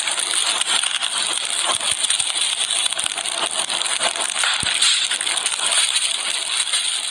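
Fire crackling and hissing, a steady rush dense with small pops and snaps.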